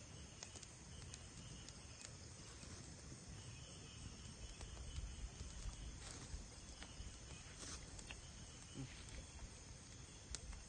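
Faint steady chorus of crickets or other night insects, a constant high trill, with a few scattered light clicks and taps.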